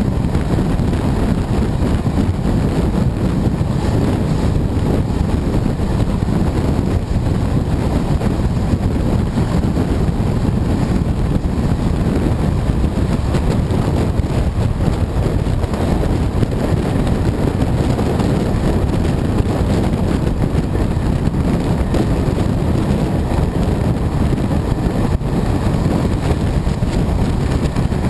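Wind buffeting the microphone of a camera held out of a moving train's window, over the steady running noise of the train on the track.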